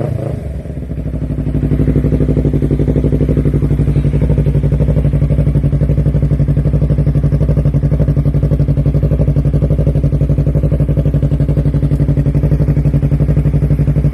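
Yamaha R3's 321 cc parallel-twin engine through a Yoshimura R11 full-system exhaust, dropping back from a rev and settling into a steady, evenly pulsing idle after about a second and a half.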